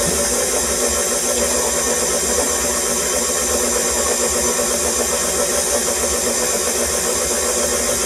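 KitchenAid stand mixer running steadily with its paddle attachment beating butter and sugar: an even motor hum and whir.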